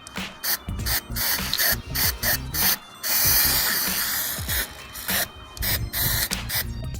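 Aerosol spray paint can hissing in a burst that starts about three seconds in and lasts about a second and a half, over background music.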